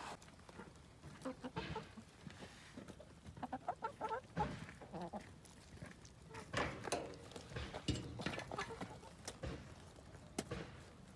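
A flock of hens clucking in short, scattered calls as they feed, with sharp clicks and taps among them.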